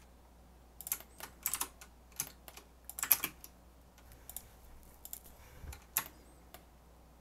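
Computer keyboard keys tapped in short, irregular clusters, the loudest cluster about three seconds in, as shortcuts are entered.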